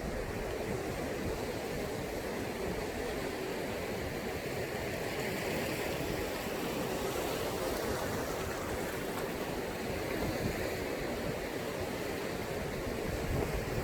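Sea waves washing on the shore: a steady, even wash of surf with no single large crash standing out.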